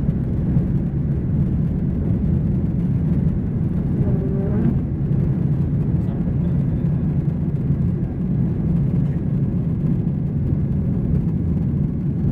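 Cabin noise of a Boeing 737-800 at takeoff power through liftoff and initial climb: a steady, loud, low rumble of its CFM56-7B turbofan engines and rushing air.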